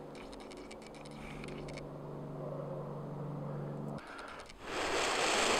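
A low, steady engine-like hum for about the first four seconds, then a loud rush of air noise that starts about four and a half seconds in and carries on.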